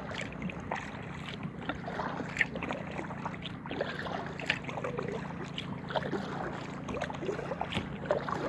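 Paddling an inflatable kayak: small irregular splashes and drips of water from the paddle and around the hull, over a steady low hum.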